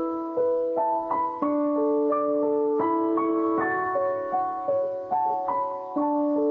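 Background music: a gentle piano melody, notes struck and held in a steady, unhurried rhythm.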